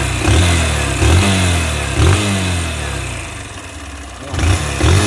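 Honda CG 160 Start's single-cylinder engine being blipped about five times, each rev rising and falling back toward idle. It carries a cylinder-head noise present since the bike was new, which the owner believes is a slack valve tappet.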